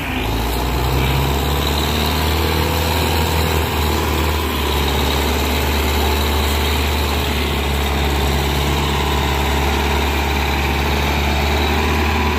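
Belarus tractor's diesel engine running steadily and hard, pulling a trolley heavily loaded with sugarcane; black exhaust smoke marks the engine working under heavy load.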